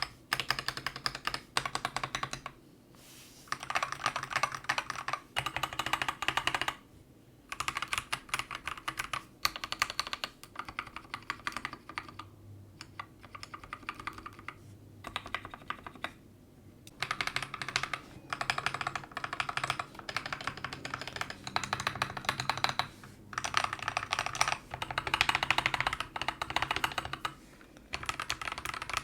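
Typing on a mechanical keyboard fitted with Akko CS Starfish switches, in quick runs of keystrokes with short pauses. The switches are stock at first; after a brief pause about halfway through, lubed ones take over.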